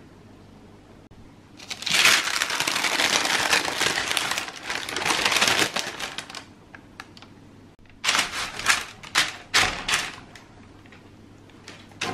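Parchment baking paper crinkling and rustling as a baked crust is peeled off it and turned over. A long, loud rustle starts about two seconds in, and later comes a run of sharp, separate crackles.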